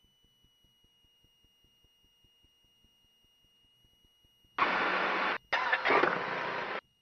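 Two bursts of radio static over the aircraft's headset audio, each starting and stopping abruptly as a transmission is keyed: the first under a second long, the second just over a second after a brief gap. Under them, a faint steady high tone and faint ticking about five times a second.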